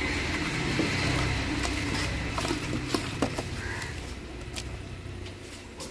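A hand kneading and mashing a damp spice paste against the bottom of a large aluminium pot, with soft squishing and scraping and a few small clicks, over a steady low rumble.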